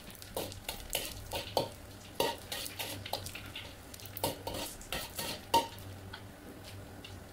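A stainless-steel spatula scrapes and knocks against a wok as deep-fried anchovies are stirred in hot oil, with a frying sizzle underneath. The strokes come unevenly, several a second, and thin out near the end.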